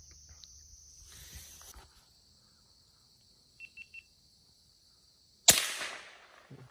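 A single gunshot about five and a half seconds in: one sharp, loud crack that dies away over about a second. Before it, crickets buzz steadily until about two seconds in, and three short high chirps come near four seconds.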